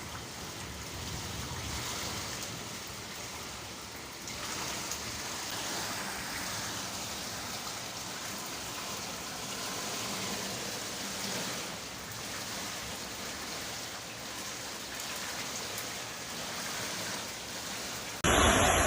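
Steady rain falling with running water, an even hiss. Near the end it cuts suddenly to a louder rushing noise.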